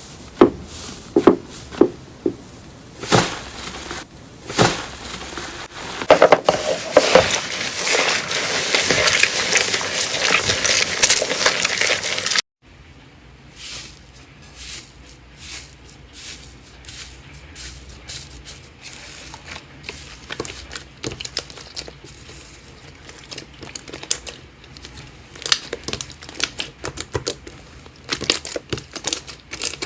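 Slime being squeezed and poked by hand, giving a run of sharp clicks, pops and crackles. They grow dense and loud up to a sudden cut about twelve seconds in, then turn into quieter, scattered crackles.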